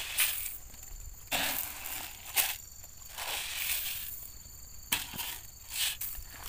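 Granular NPK fertiliser pouring from a container into a hole in the soil, a hissing patter of pellets landing on earth and dry twigs, with a few sharp clicks and rustles of leaf litter. A faint steady insect drone sits behind it.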